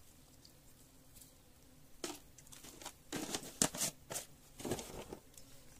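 Crinkling rustles of a plastic packet being handled and folded, a burst of irregular crackles starting about two seconds in and lasting about three seconds.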